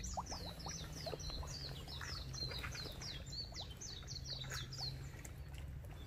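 A songbird singing a fast run of short, high, descending notes, several a second, which stops about five seconds in, over a steady low rumble.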